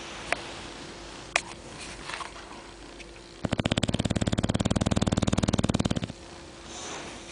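English bulldog snoring in its sleep: one long snore with a fast flutter starts about three seconds in and lasts nearly three seconds. Two short clicks come shortly before it.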